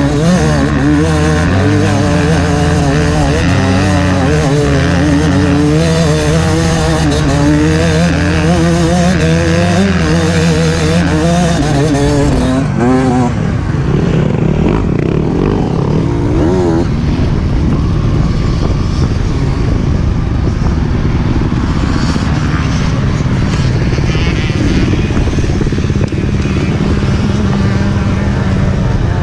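Off-road motorcycle engine under way, its revs rising and falling again and again. About halfway through the note drops and becomes a rougher, steadier rumble.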